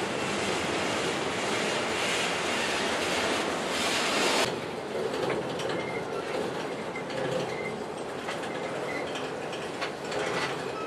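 Freight train cars rolling past on the rails. At first there is a loud, steady rushing noise, which cuts off abruptly about four and a half seconds in. After that the wheels click over the rail joints, with short, faint squeals from the wheels.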